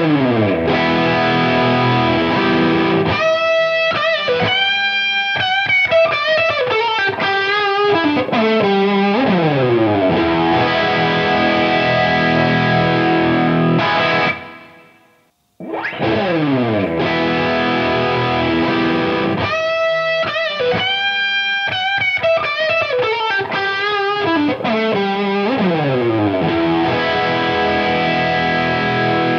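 Distorted electric guitar lead played through a Fractal AX8 amp modeler, with fast descending runs and held notes with vibrato. The same phrase is heard twice, with a short break about halfway: first recorded through a Countryman Type 10 DI box, then straight from the AX8's XLR output.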